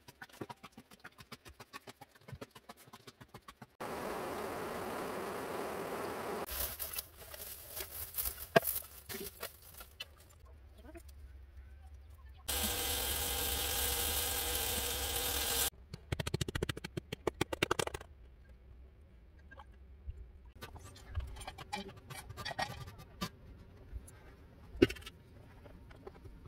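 Chunks of meat frying in oil in a metal pot, a steady sizzle about halfway through, cut together with an earlier stretch of similar hiss and scattered clicks and knocks of cooking utensils.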